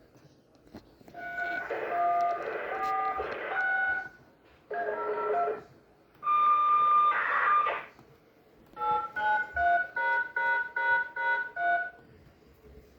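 Touch-tone (DTMF) dialing tones of a siren activation code coming over a radio speaker with a light hiss: a few held two-note beeps, then a quick run of short beeps, about three a second, near the end.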